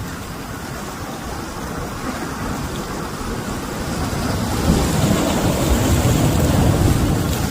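Sea waves rushing on the shore, a steady noisy wash that swells louder with a deep rumble about four seconds in and eases near the end.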